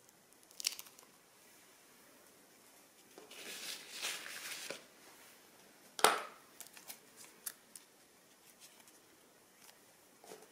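Plastic piping bags being handled: crinkling and rustling for about a second and a half in the middle, with a few sharp clicks and snaps, the loudest about six seconds in.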